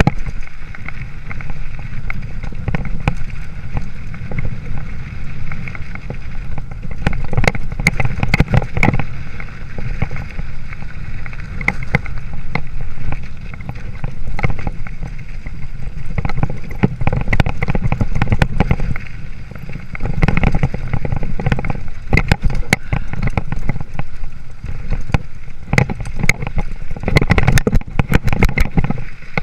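Wind rumbling on a chest-mounted action camera's microphone while riding a 26-inch hardtail mountain bike on a dirt trail, with frequent rattles and knocks from the bike going over rough, rocky ground.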